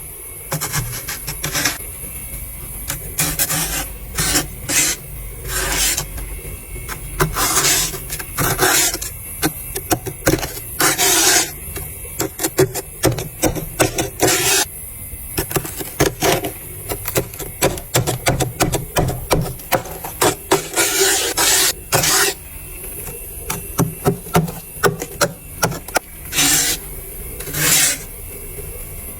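Thick, humidifier-grown frost being scraped from the inside of a deep freezer: a run of irregular raspy scraping strokes, some short and some drawn out, over a steady low hum.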